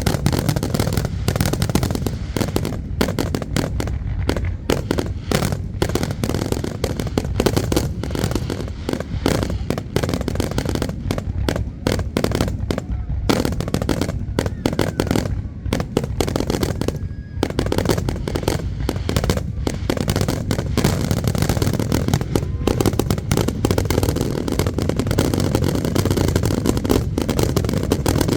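Fireworks display with bangs and crackles going off in rapid, near-continuous succession.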